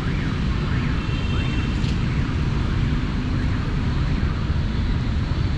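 Steady drone of city traffic, with a vehicle horn sounding briefly between one and two seconds in.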